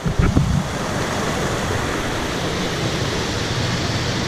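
Waterfall rushing over rocks: a steady, loud wash of falling water, with a few low thumps in the first half second.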